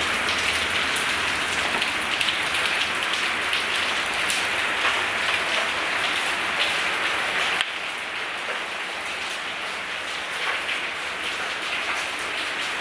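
Heavy rain falling steadily, a dense hiss heard from inside a garage; it steps down a little quieter about seven and a half seconds in.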